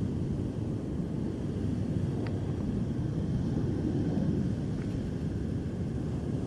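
Steady low rumble of ocean surf and wind on the beach, with no distinct events apart from a couple of faint ticks.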